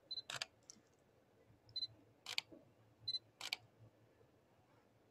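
Camera shutter firing three times, about a second and a half apart, each shot preceded by a short high beep.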